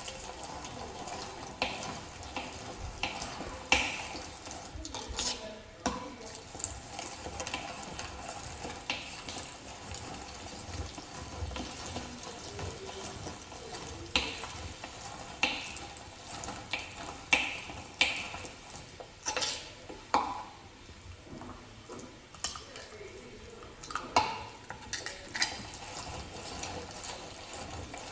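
Irregular clicks and knocks from a hand-operated meat grinder being worked or handled, with a light scraping, stirring sound between them.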